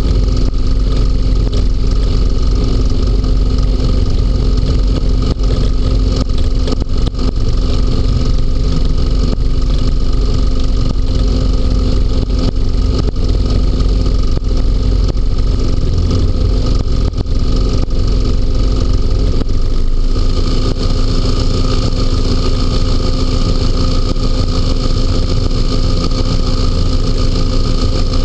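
Inflatable hovercraft running under way over snow: engine and fan give a loud, steady drone at an even pitch. About twenty seconds in, a brighter hiss comes up over the drone.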